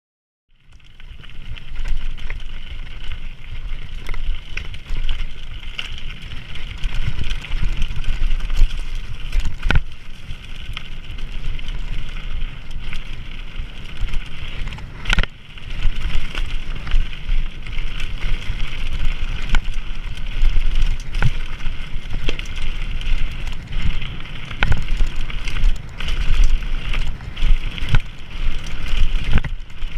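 Raw onboard sound of a mountain bike descending a rocky, stony trail: wind buffeting the camera microphone with a heavy rumble, tyres hissing and crunching over gravel, and frequent sharp knocks and rattles from the bike over bumps. It starts about half a second in, after a brief silence.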